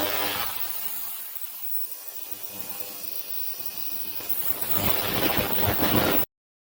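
Ultrasonic cleaner running with a buzzing hum, quieter from about a second in and swelling back up near the end before cutting off abruptly.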